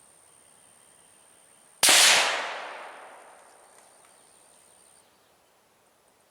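A single shot from a Ruger American Ranch bolt-action rifle in 7.62x39, fitted with a muzzle brake, about two seconds in. It starts suddenly and its echo fades away over about two seconds.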